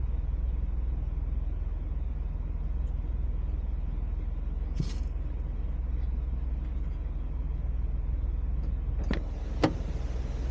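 Toyota Land Cruiser 70 driving along a gravel forest road: a steady low rumble of engine and tyres, with a few sharp knocks, the loudest near the end.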